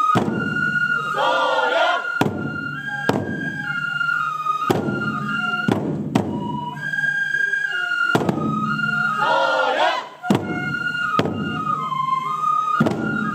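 Toramai tiger-dance festival music: a Japanese fue flute plays a stepping melody over heavy strikes on large taiko drums, about one beat every second or so. Voices call out twice, about a second and a half in and again near the ten-second mark.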